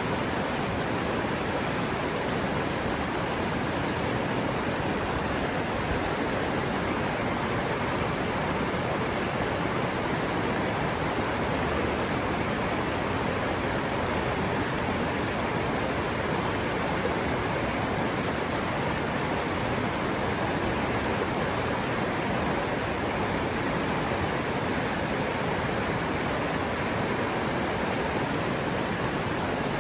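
River water running steadily over rocks, a constant rushing with no breaks.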